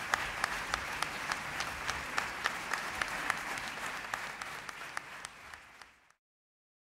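Crowd applauding, with one nearby pair of hands clapping steadily about three times a second over the rest. The applause fades and cuts off to silence about six seconds in.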